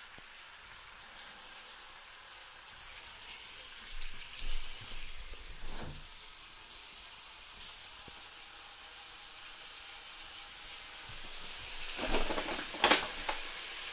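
Bacon sizzling in a frying pan: a steady frying hiss, with a few louder sudden pops and bursts about four to six seconds in and again near the end.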